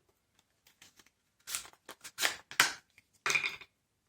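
Hands handling Framework Laptop expansion cards: a few short scrapes and clicks, with a longer scrape about three seconds in.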